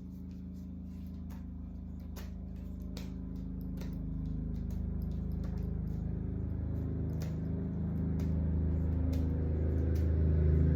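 Low engine rumble of a nearby motor vehicle, growing steadily louder, with a few light clicks over it.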